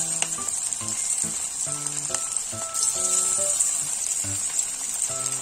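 Leftover-rice and besan fingers deep-frying in hot oil, a steady sizzle throughout. Background music of short melodic notes plays along.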